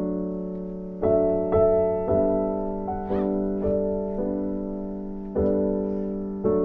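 Background music: gentle solo piano, notes and chords struck about once a second and left to fade.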